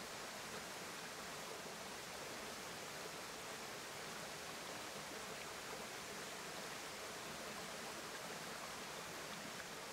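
Small forest stream running over rocks: a steady, even rush of water.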